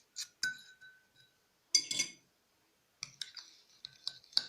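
A small metal spoon clinking against a glass while stirring honey into lemon juice to dissolve it: a few separate clinks, one left ringing, a louder clatter about two seconds in, then quick, continuous clinking.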